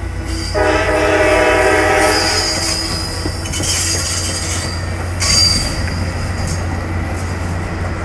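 Metra locomotive 422's horn sounds for about two seconds from up the line as the bilevel coaches roll past. High-pitched wheel squeal follows a few times, loudest about five seconds in, over the steady rumble of the passing train.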